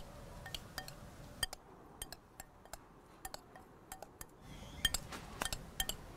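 A utensil tossing a tomato, seaweed and onion salad in a bowl, giving a run of light, irregular clinks and taps against the bowl.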